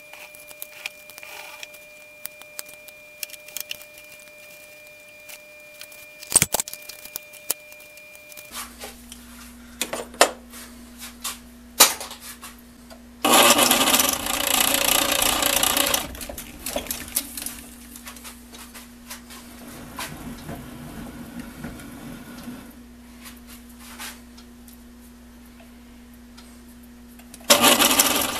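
Metal lathe running with a steady hum once its motor starts, about a third of the way in. The turning tool cuts into the spinning metal workpiece with a loud, harsh cutting noise for about three seconds near the middle and again just before the end. Before the lathe starts there are only scattered clicks.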